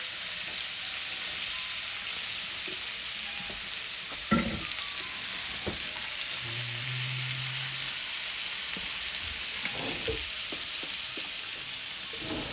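Spiced shrimp sizzling steadily in a hot pan. There is a sharp knock about four seconds in and a couple of lighter knocks later.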